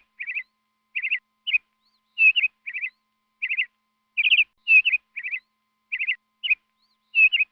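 A bird chirping: short clusters of quick, high chirps, repeated about twice a second with brief pauses between them.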